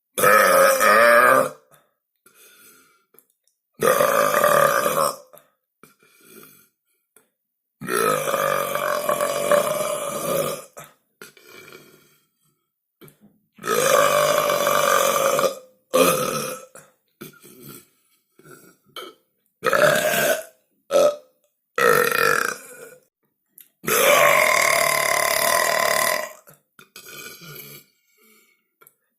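A run of loud human belches, one after another with near-silent gaps between: about nine in all, some long drawn-out burps of two seconds or more, others short.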